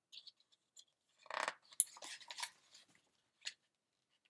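Pages of a picture book being handled and turned: a few short paper rustles, then a louder stretch of rustling and flapping paper from about one to nearly three seconds in, and a light tap near the end.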